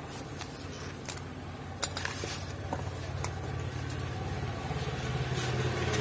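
A motor vehicle's engine running, a low hum that grows steadily louder as it approaches, with a few faint clicks in the first half.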